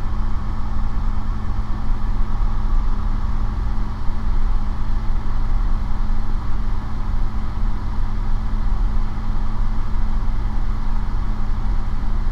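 Light aircraft's piston engine and propeller droning steadily in cruise flight, a constant low hum with no change in pitch.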